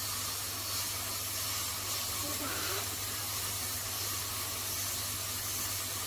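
Hot air gun of a Gordak 952H rework station blowing a steady hiss of hot air, with a low steady hum under it. It is heating a small component on a circuit board to desolder it for removal.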